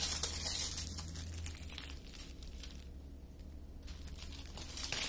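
Small plastic bags of diamond-painting drills crinkling as they are handled and laid down, with a brief quiet pause about three seconds in.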